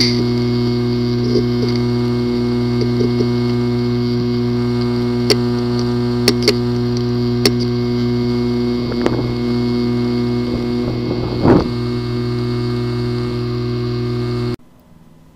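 A failing hard drive: a steady hum from the running drive with a few sharp, irregular clicks and one louder knock about three quarters through, then the sound cuts off near the end. Clicking like this is given as a sign of a physically damaged disk assembly.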